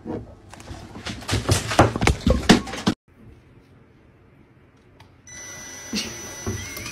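A quick run of loud knocks and clinks as a cat works its head inside a tall beer glass. About five seconds in, a cordless drill's motor starts and runs steadily with a thin high whine, spinning a fluffy cat toy fixed in its chuck.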